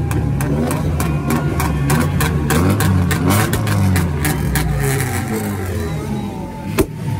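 Modified Honda Civic's engine revving hard while a flame kit fires through the exhaust, making rapid sharp pops and bangs. The popping stops about five seconds in, and one loud bang comes near the end.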